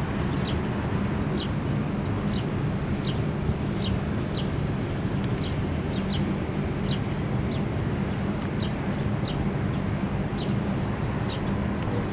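Norfolk Southern freight train of tank cars rolling past, a steady low rumble of wheels on rail. A short, high, falling chirp repeats about every half second over it.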